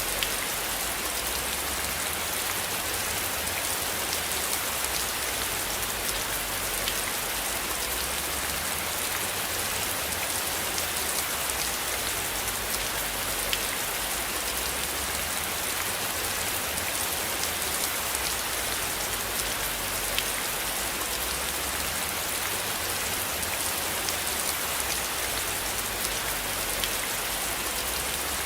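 Steady rain falling, an even hiss with a few sharper drop ticks now and then, over a low rumble that slowly swells and fades.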